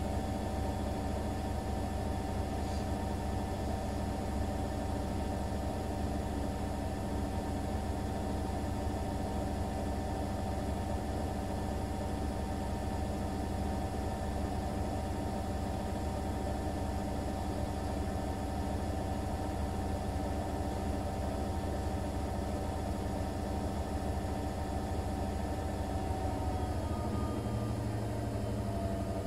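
Siemens iQ500 front-loading washing machine on an intermediate spin at about 800 rpm: a steady motor whine over the rumble of the spinning drum. Near the end the pitch starts to fall as the spin begins to slow.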